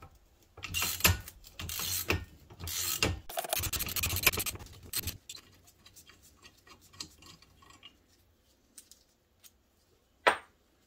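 Metal scraping and rasping in several strokes as hardware is worked loose on a snowmobile suspension skid's shaft. It is followed by faint clicks and one sharp knock near the end.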